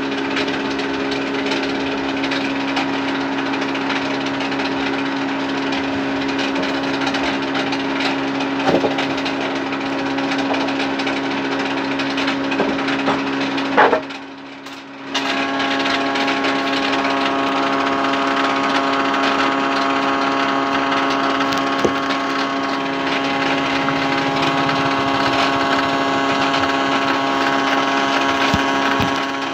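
Sawmill band saw machinery running with a steady electric hum and whine. The sound drops away for about a second near the middle, and a higher whine joins in after.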